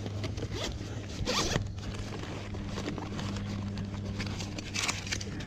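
A zipper on a soft tackle bag being pulled, with two quick scratchy zips, one about a second in and one near the end, over a steady low hum.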